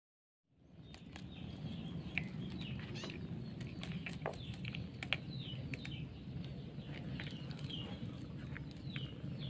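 Many short, high chirps, each falling in pitch, over a steady low hum, with scattered clicks, as a litter of young long-haired kittens moves about in a plastic basket.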